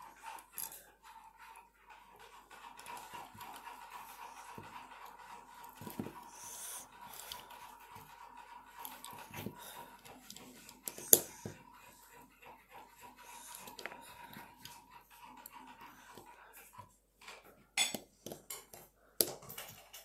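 Plastic LEGO bricks handled and pressed together: scattered small clicks and taps, the sharpest about eleven seconds in and a cluster near the end, over a faint steady whine.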